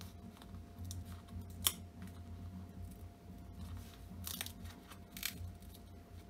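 Perished polyurethane-leather headphone ear pad being torn by hand off its plastic clip ring: a run of short tearing and crackling rasps, with a few sharper ones.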